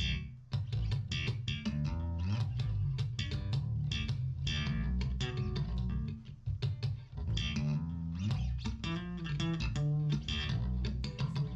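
Music: plucked guitar over a bass guitar line, with a steady rhythm of notes.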